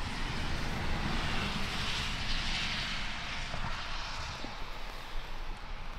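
Road noise from a passing vehicle: a steady rushing that swells about two seconds in and slowly fades, over a low rumble.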